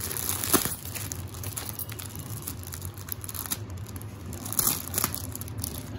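Clear plastic clothing packets and a paper mailer crinkling and rustling as hands handle and press on them, with a couple of louder crackles.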